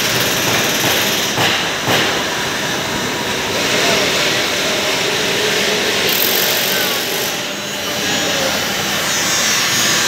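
Steady, loud machinery noise filling a metal fabrication workshop, with people talking faintly in the background and two short clicks about a second and a half and two seconds in.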